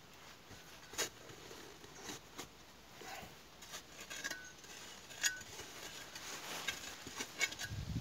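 A steel spade digging into sandy soil: scattered soft scrapes and crunches of the blade, the clearest about a second in and again about five seconds in.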